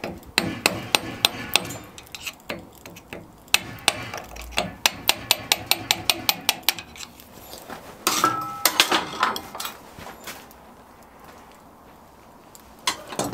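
Hammer blows on a screwdriver used as a makeshift punch, driving a part out of a hot steam waggon valve body held in a vise. A run of sharp metal taps is followed by a steadier series of about four strikes a second, then a clatter with a short ringing note about eight seconds in.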